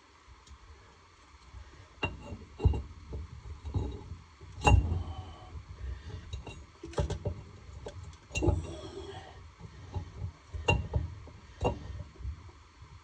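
Scattered metal clinks and knocks as engine parts are handled during assembly of a two-stroke snowmobile engine's piston and cylinder, with a sharper knock about five seconds in.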